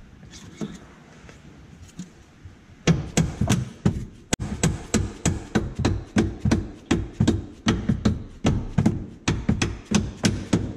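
Repeated hammer blows on the golf cart's rear suspension mount, driving the bolt through the bushing. The blows start about three seconds in and go on steadily at about three a second.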